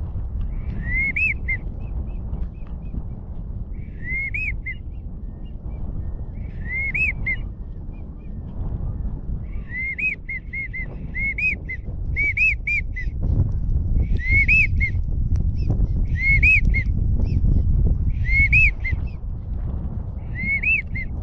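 Wigeon whistle duck call blown in short groups of two to four rising-and-falling whistles, repeated about every two to three seconds. Under it runs a steady low rumble of wind on the microphone.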